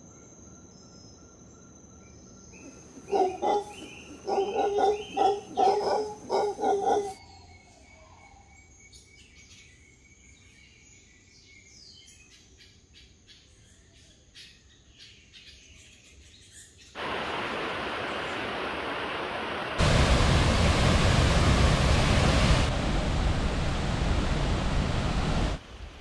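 Tropical forest ambience: a steady high insect whine, with a bird calling loudly about half a dozen times early on and fainter chirps after. Past the middle a loud steady rushing noise comes in, grows louder a few seconds later and cuts off suddenly just before the end.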